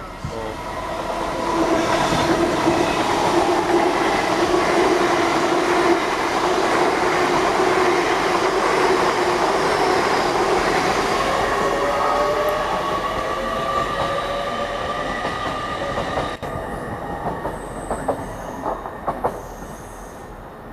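A train running past along the platform: wheel and running noise with several steady squealing tones, building over the first two seconds, loud for about ten seconds, then fading away, with a few short clicks near the end.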